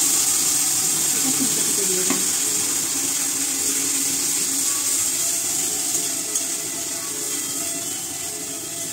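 Wet spice paste (masala) sizzling in hot oil in a wok as it is fried and stirred, a loud steady hiss that slowly dies down.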